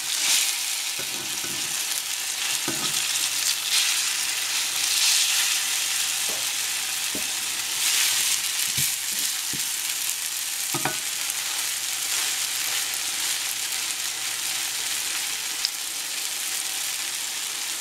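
Pancake batter frying in olive oil in a pan, a steady sizzle, with a few short knocks of plastic spatulas against the pan.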